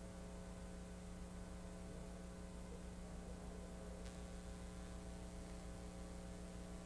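Low steady electrical mains hum with faint hiss. One faint click about four seconds in.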